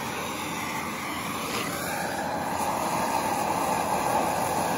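A handheld torch flame running steadily against the surface of an old barn board, scorching the wood; the steady hiss grows a little louder about two seconds in.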